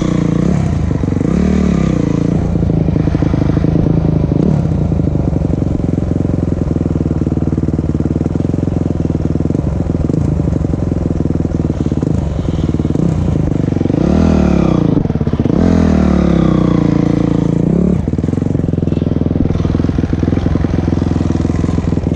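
A motor vehicle's engine running steadily under load, its pitch rising and falling several times as it revs up and eases off, with rattling and clatter throughout.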